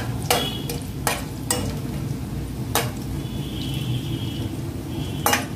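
Whole spices sizzling in hot oil in a steel kadhai as they are roasted for a tadka, stirred with a steel ladle that clinks and scrapes against the pan about five times.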